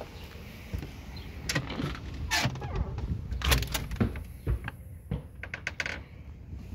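Footsteps on a wooden deck, then keys rattling and a lock and latch clicking as an exterior door is unlocked and pushed open. Sharp clicks and knocks come thickest in the middle.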